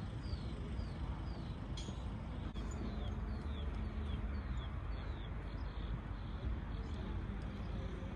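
Scania R-series truck's diesel engine running steadily with a deep rumble. Two runs of high, falling chirps repeat about twice a second over it, one at the start and one in the middle.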